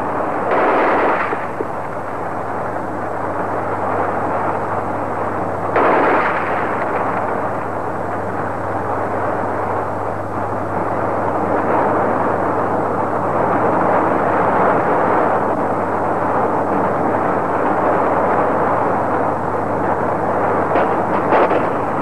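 Gunfire on an old archival film soundtrack. A continuous noisy din is broken by louder bursts about a second in and again about six seconds in, over a steady low hum.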